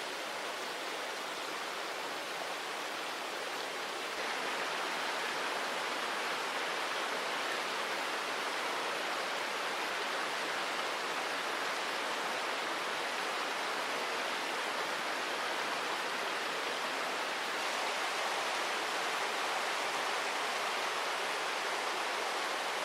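Steady rush of flowing river water, a little louder from about four seconds in.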